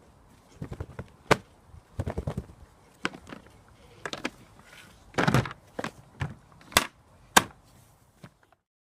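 A series of sharp, irregular knocks and clacks, about a dozen over several seconds, a few of them louder than the rest. No steady vacuum motor is heard.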